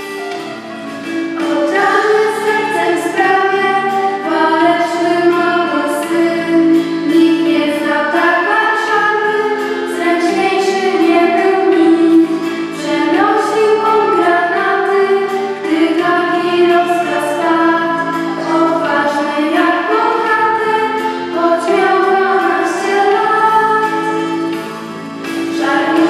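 A small group of girls' voices singing a song together, with a sustained musical accompaniment beneath. The singing comes in about a second in.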